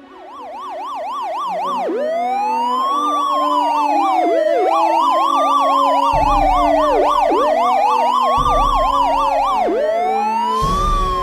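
Police car sirens, fading in over the first two seconds: one wails slowly up and down about every two and a half seconds, while another yelps rapidly up and down in stretches over it.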